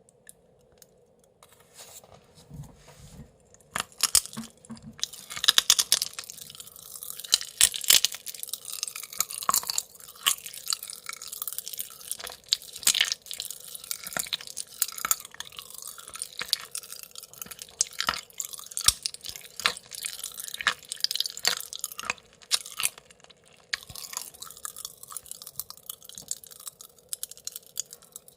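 Pachipachi Panic popping candy crackling in the mouth: a dense, irregular run of sharp pops and snaps, mixed with chewing and crunching of the candy. It starts about four seconds in and is densest a few seconds after that.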